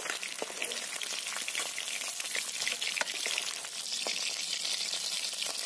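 Small fish frying in hot mustard oil in a wok, a steady sizzle, with a metal spatula clicking and scraping against the pan as the fried fish are lifted out.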